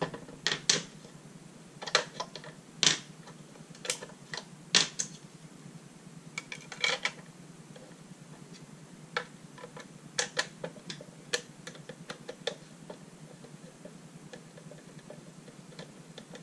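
Hard plastic clicking and clacking as an automatic card shuffler's housing and its batteries are handled. The clicks come in irregular clusters, several sharp ones in the first half, then fainter and sparser toward the end.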